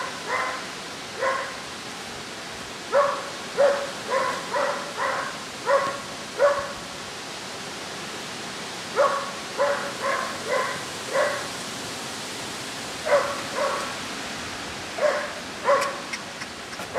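A dog barking repeatedly in short runs of two to five barks, with pauses of a second or two between the runs.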